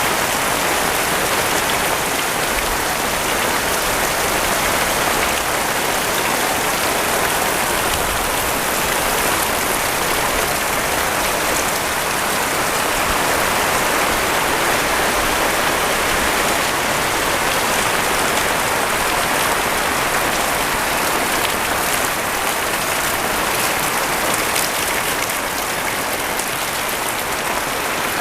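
Heavy rain falling steadily, a dense, even hiss of drops that holds at the same level throughout.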